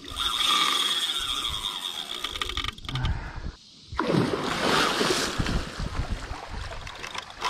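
Water splashing and churning at the surface beside the boat as a hooked alligator gar thrashes on the line. A steady high whine runs through the first half, and the sound drops out briefly before a louder burst of splashing about four seconds in.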